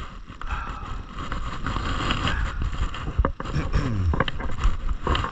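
Wind rumbling steadily on a handheld phone's microphone, with rustling and a few sharp handling knocks as the phone is moved about.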